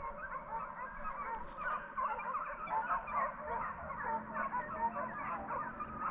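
A pack of deer hounds running and baying together, many voices overlapping in an unbroken chorus.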